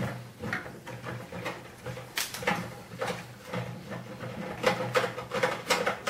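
Screwdriver turning a screw out of a microwave oven's sheet-metal chassis: a run of small irregular clicks and scrapes, about two a second.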